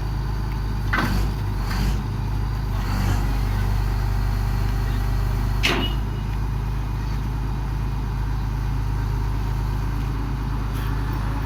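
GD 45 horizontal directional drilling rig's engine running steadily, with a few short knocks about a second in and near the middle.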